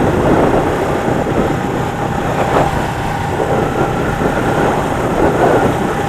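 1977 Suzuki GS400 two-cylinder engine running steadily while the motorcycle is ridden.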